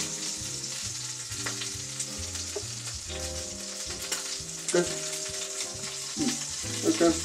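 Steak and a mushroom frying in olive oil in a pan on the stove, sizzling steadily, with a few light knocks from the pan. A quiet tune of low held notes plays underneath.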